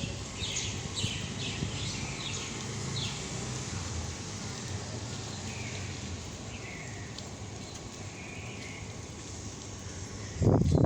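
Birds chirping in short calls with falling pitch over a steady low rumble, the calls thickest during the first three seconds. About ten seconds in, a louder low-pitched burst of noise cuts in.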